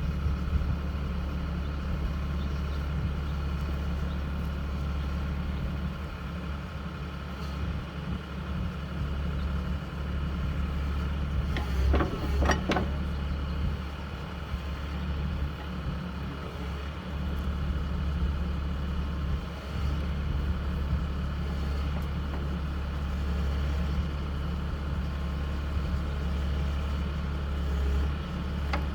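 Backhoe's diesel engine running steadily as the loader works, its level rising and dipping with the load. Two sharp knocks sound about twelve seconds in.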